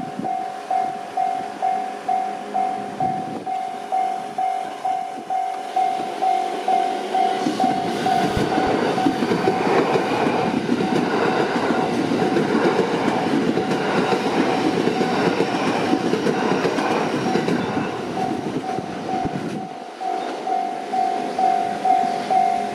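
Japanese railway level-crossing warning bell ringing in a steady repeating ding, about one and a half strikes a second. About seven seconds in a train passes over the crossing, its wheel and running noise drowning the bell for some twelve seconds, and then the bell is heard alone again.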